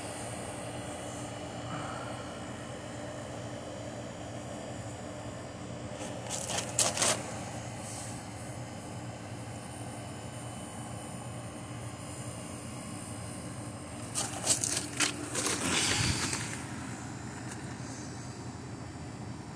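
Air-conditioning condenser fans running with a steady droning hum and a low tone. Over it come brief bursts of rustling and scraping about seven seconds in and again around fifteen seconds in, as a wooden stick pokes the burning cardboard and paper.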